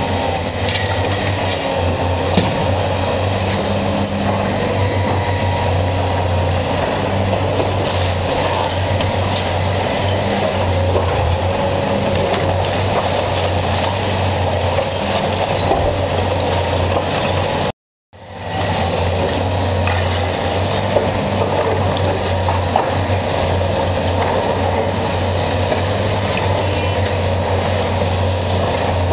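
Hydraulic demolition excavator's diesel engine running steadily, with a few sharp knocks of rubble as its grab tears into a brick building. The sound cuts out completely for about half a second around two-thirds of the way through.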